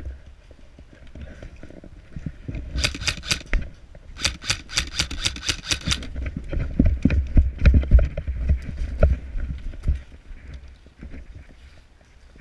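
Running footsteps and rattling gear over dry dirt and leaf litter: two quick runs of rapid sharp clicks, then heavy thuds against the body-worn camera, loudest about seven to nine seconds in, dying away near the end as the runner stops.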